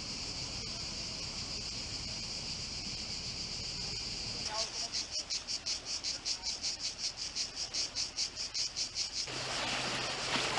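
Cicadas buzzing loudly in a steady high drone, which turns into a pulsing chorus of about five pulses a second. Near the end this gives way to small waves washing over a rocky shore.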